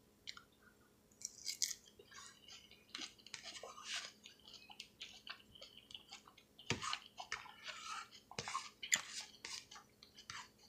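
Close-miked chewing of a mouthful of salad: soft, irregular wet crunches and mouth sounds, a little louder about two-thirds of the way through.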